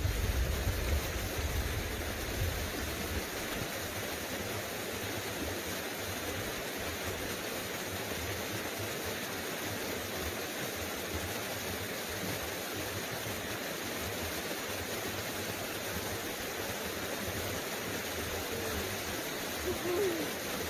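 A small creek running steadily over its bed, an even rush of flowing water, with wind buffeting the microphone in the first few seconds.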